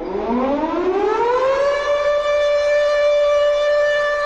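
A siren winding up: one pitch rising smoothly for about a second and a half, then holding steady.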